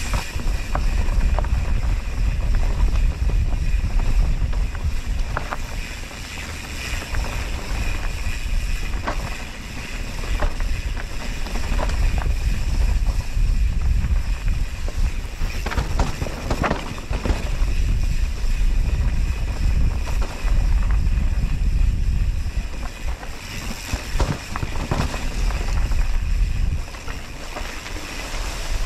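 Wind buffeting the GoPro's microphone on a mountain bike rolling along a trail, with scattered clicks and rattles from the bike and its tyres over the ground. The wind noise eases a few times and comes back.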